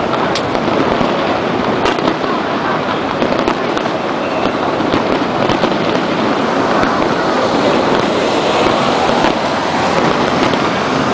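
Aerial fireworks going off, with scattered sharp pops and crackles over a dense, steady din.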